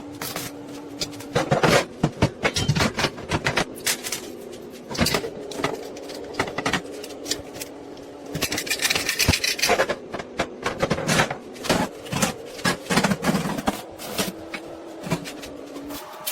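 Workshop clatter: many short knocks and clicks of metal being handled, over a steady electrical hum, with a denser hissing crackle from about eight to ten seconds in.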